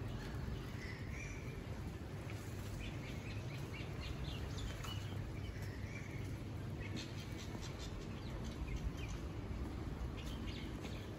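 Birds chirping now and then over steady outdoor background noise.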